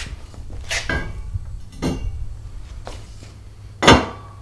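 Square steel tubing knocking and clinking against steel as a leg section is fitted onto a welded steel table frame: a few separate metallic clinks, with the loudest knock near the end.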